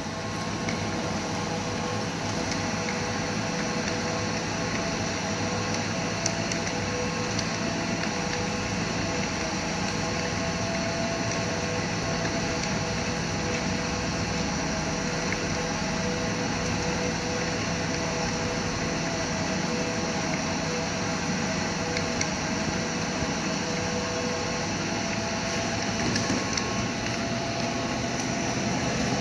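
Small electric flat-die pellet mill running under load, pressing feed mash into pellets: a steady mechanical hum from the motor, belt drive and die, with a few steady tones held throughout.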